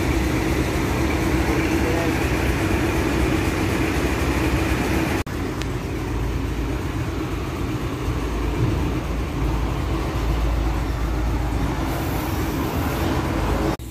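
Heavy diesel truck engine idling steadily, a deep, continuous low hum. The sound changes abruptly about five seconds in and again near the end.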